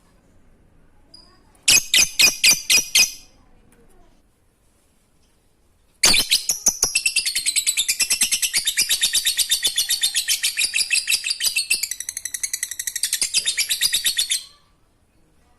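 Lovebird (Agapornis) 'ngekek': a short burst of rapid shrill chattering calls, a pause of about three seconds, then a long unbroken run of the same rapid calls lasting about eight seconds. This is the extended chattering song that bird keepers prize and play to get other lovebirds calling.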